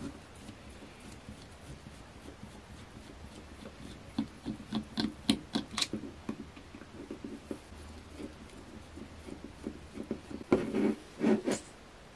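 A screwdriver turning out small screws from the plastic housing of an Atomstack laser air-assist pump: a run of short scraping clicks. Near the end come a few louder knocks and clatter as the plastic housing is pulled apart.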